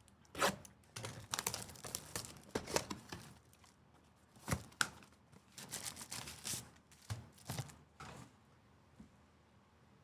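Sports card packs and cards being handled: irregular rustling, tearing of pack wrappers and short clicks and slides of cards, with a few louder strokes.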